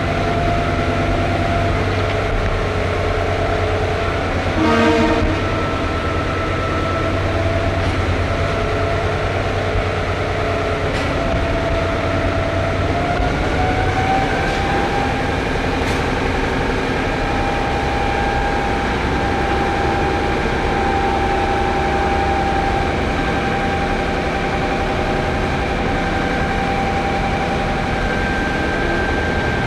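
Train running, with steady whining tones over a rumble; the tones step up in pitch about halfway through. A short, louder sound cuts through about five seconds in.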